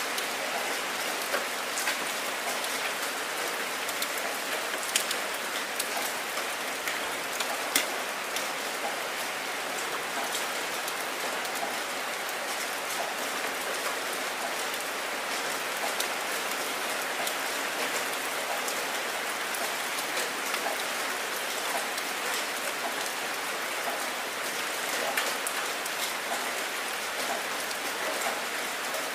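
Heavy rain falling steadily and splashing onto wet ground: an even hiss of many drops, with a few sharper single drop hits standing out now and then.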